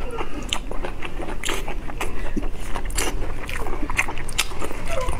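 Close-miked eating: wet chewing and lip smacks of greasy braised meat wrapped in lettuce, a quick irregular run of sharp mouth clicks.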